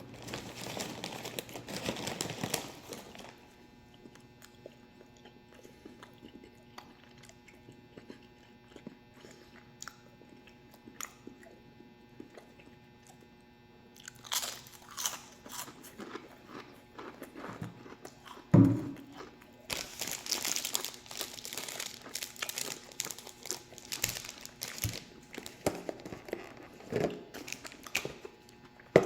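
A person biting and chewing food with crunching sounds, in bouts separated by quieter stretches. A single sharp thump about two-thirds of the way through.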